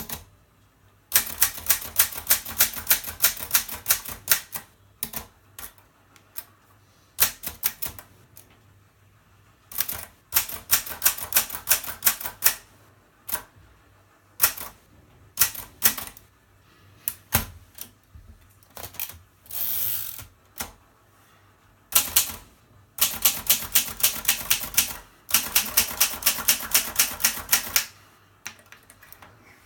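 Mercedes K45 portable manual typewriter being typed on: runs of sharp key and typebar strikes at about four a second, broken by short pauses. About two-thirds of the way through there is a smoother rasp lasting about a second.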